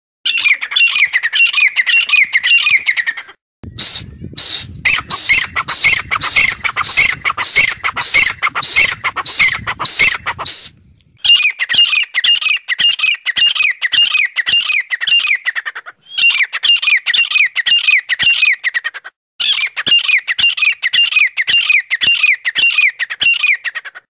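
Francolin calling: fast runs of loud, sharp, repeated notes, about five a second, in bouts of a few seconds broken by short pauses. From about four to ten seconds in the calls sit over a low rumbling background.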